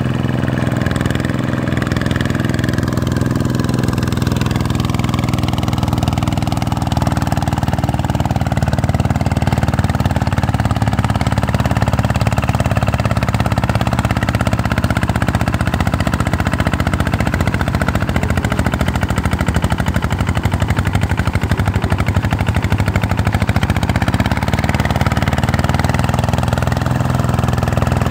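Vikyno RV125-2 single-cylinder diesel engine on a two-wheel hand tractor, running steadily under load as its cage wheels puddle a flooded paddy field. The note sags a little in the middle and picks up again near the end.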